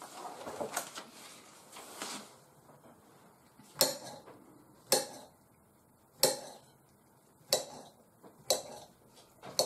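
Kitchen knife dicing soft shaggy ink cap mushrooms on a ceramic plate: a soft scraping at first, then sharp clinks of the blade striking the plate, about one a second.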